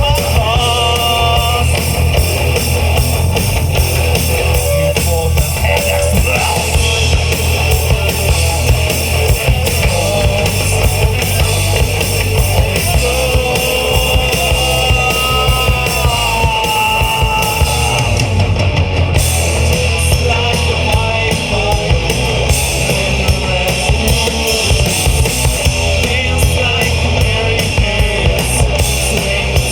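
Live rock band playing a song on drum kit, electric guitars and bass guitar, with a lead guitar melody carried over the band.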